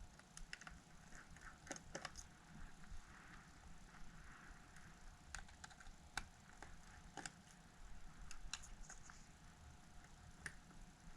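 Faint, irregular small clicks and ticks of a precision Phillips screwdriver and tiny metal parts as screws are backed out of the metal plate inside an iPhone 6s.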